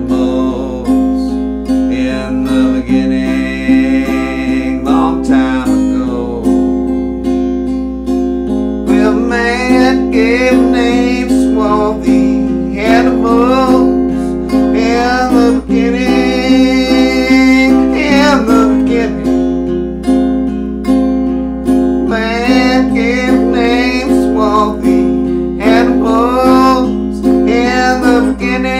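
Acoustic guitar music playing steadily, with a melody line that bends and glides in phrases over it.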